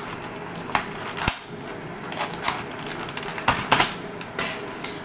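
Irregular light clicks and rattles of small metal earring hooks and jump rings being picked out of a kit of earring parts, with a sharper pair of clicks a little past the middle.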